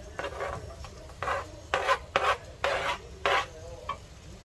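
A kitchen utensil scraping in a series of about six short, separate strokes.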